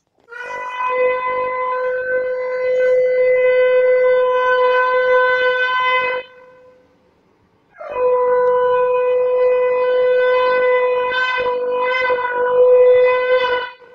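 Conch shell (shankha) blown in two long blasts of about six seconds each, on one steady pitch with a short breath between them. The second blast wavers near its end.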